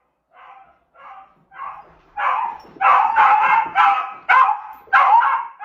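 Dog barking in a series of about nine short barks, the first few faint, then louder and quicker from about two seconds in.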